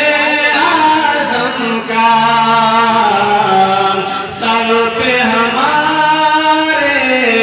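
A man singing a naat, an Urdu devotional poem in praise of the Prophet, unaccompanied into a microphone. He holds long ornamented notes that glide between pitches, with brief breaths between phrases.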